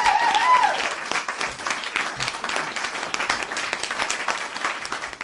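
Crowd applause, many hands clapping, with a brief cheer of voices at the start; the clapping thins a little toward the end.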